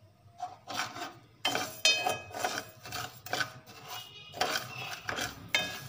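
A steel ladle stirring and scraping dry granulated sugar around the bottom of a metal pot, in repeated gritty strokes about two a second with a light metallic ring. The sugar is still dry and has not yet begun to melt for caramel.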